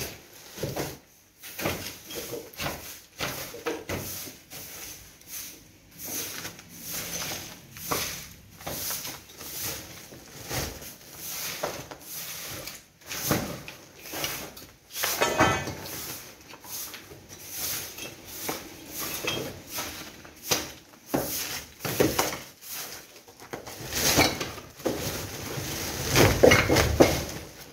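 Woven plastic rubble sacks rustling and crinkling as they are handled and shifted, in a run of irregular rustles and scrapes, with a short rasping scrape about fifteen seconds in and the loudest handling near the end.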